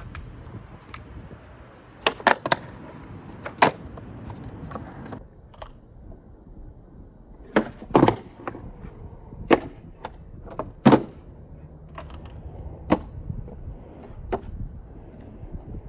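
Skateboard rolling over skatepark concrete, with sharp, irregular clacks as the board's tail and wheels strike the ground, about a dozen in all.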